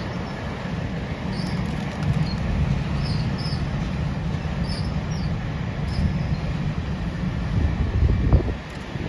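Heritage passenger cars rolling past: a steady low rumble of steel wheels on rail, with a few faint high squeaks, and a heavier thump about eight seconds in after which it eases off.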